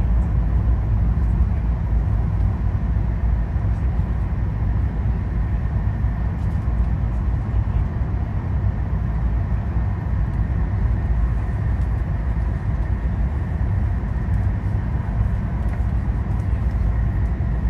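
Steady cabin noise of a Hokkaido Shinkansen bullet train running at speed: a dense, even low rumble with a hiss above it.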